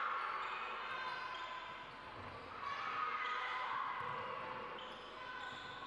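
Basketball bouncing on the court during a game, with a few dull thuds over a steady background of short, high squeaks.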